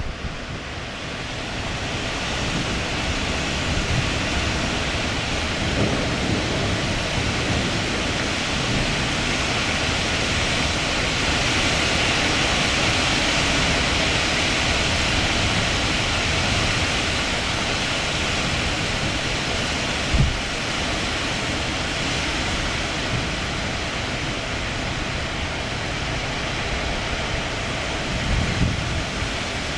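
Strong thunderstorm outflow wind rushing through trees and leaves as a continuous hiss. It swells toward the middle and eases again, with low wind buffeting on the microphone and one brief low thump about two-thirds of the way through.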